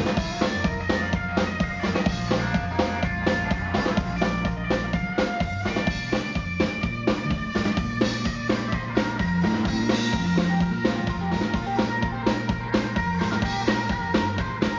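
Live rock trio playing: electric guitar and electric bass over a drum kit keeping a steady, fast beat.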